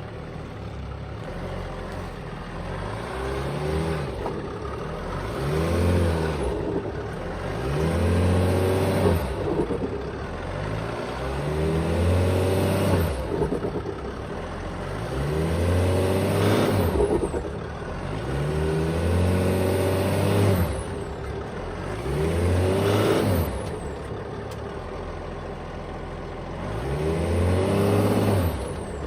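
Mercedes E320 CDI's OM648 inline-six turbodiesel revved up and let back down about eight times, each swell carrying a high whistle that rises and falls with it. This is the turbo flutter under load that the owner is unsure is normal.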